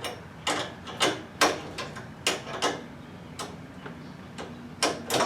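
Irregular sharp metallic clicks, roughly two a second, from an adjustable wrench working the nut on a chain-drive garage door opener's chain-tension bolt as it is loosened.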